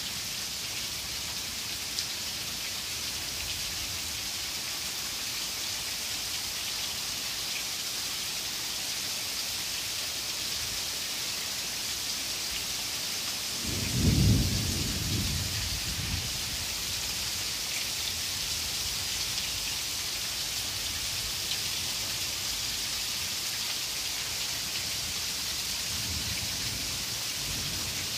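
Heavy rain falling steadily in a thunderstorm, with a loud clap of thunder about halfway through that rumbles away over a couple of seconds, and a fainter rumble of thunder near the end.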